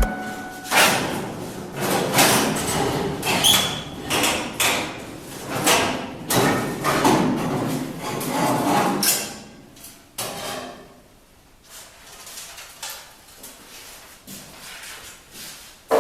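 Irregular knocks and bangs, about one or two a second, with a brief metallic ring on one of them. They thin out and grow fainter after about ten seconds.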